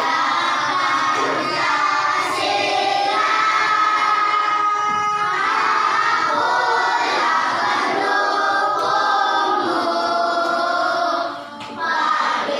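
A group of children singing a song together, with long held notes, breaking off briefly near the end.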